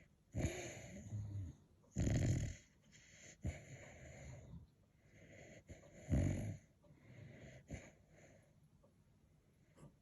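A sleeping dog snoring in uneven breaths, with loud snores about two seconds in and about six seconds in and softer snoring breaths between.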